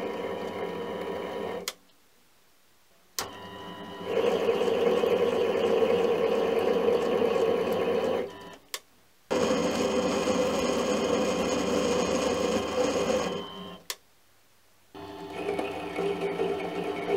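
Mini lathe running while a threading tool cuts an external thread into a 42CrMo4 steel shaft: a steady machine noise with a fixed gear-and-motor whine, in several passes. It cuts off abruptly three times, with short gaps of near silence between the passes.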